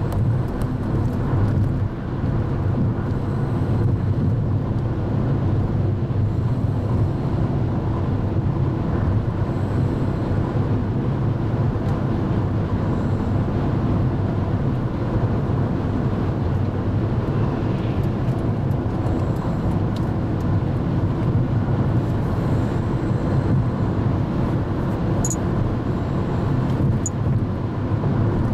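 Steady road and engine noise heard from inside a car cabin while driving on a highway, a constant low drone with no change.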